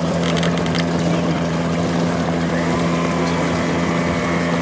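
A steady low mechanical hum, two constant tones with a noisy wash over them, unchanging in level, with a few light clicks right at the start.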